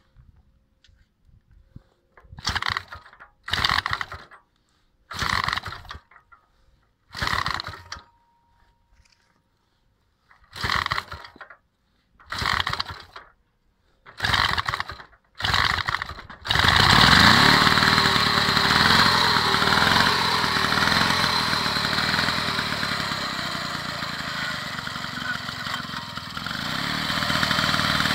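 1927 Peugeot P 102 B motorcycle engine being started: a run of short sputtering bursts, then about 16 seconds in it catches and keeps running, picking up again near the end.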